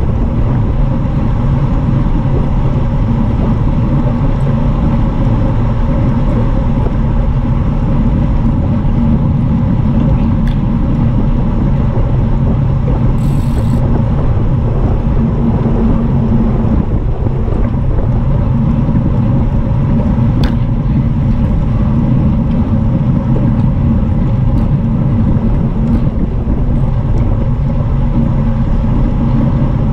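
Wind and tyre noise of a road bike racing at speed, picked up by a bike-mounted action camera: a steady rush of air with a low hum, and a short click about thirteen seconds in.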